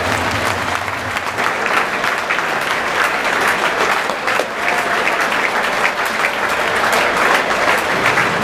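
Large football stadium crowd applauding at full time: a steady mass of clapping from the stands.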